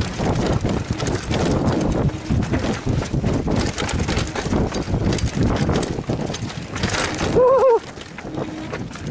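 Downhill mountain bike ridden fast over a rough dirt trail, heard through a helmet-mounted camera: continuous rattling and knocking as the bike and camera shake over bumps and roots, with rushing tyre and wind noise. Near the end a brief wavering high tone cuts through.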